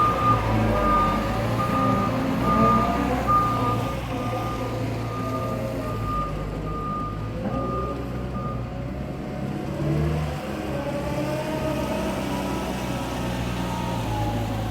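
Heavy vehicle's reversing alarm beeping in a steady series of short high tones over its running engine; the beeping stops about nine seconds in while the engine runs on, its note rising and falling.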